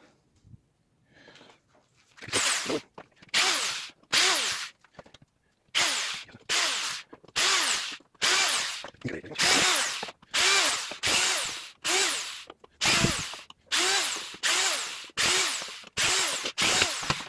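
Cordless drill-driver unscrewing screws from steel angle brackets, run in a rapid series of short bursts of about half a second each. In each burst the motor's pitch rises and falls as the trigger is squeezed and let go.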